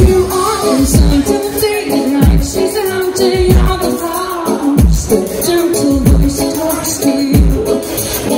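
Live pop song played loud through a festival stage's loudspeakers: a woman sings the lead melody into a microphone over a dance beat with a steady kick drum.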